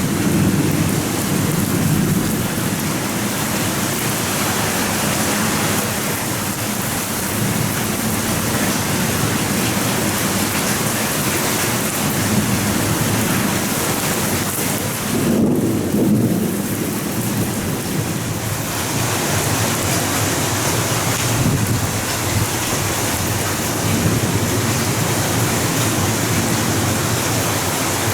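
Torrential downpour of rain with low, rolling thunder rumbling underneath, swelling near the start and again about halfway through.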